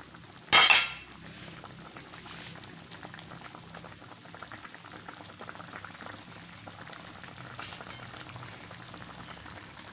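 Fish-and-tomato broth (asam pindang) boiling in a metal wok: a steady fine crackle of bubbles popping. About half a second in, a brief loud clatter sounds over it.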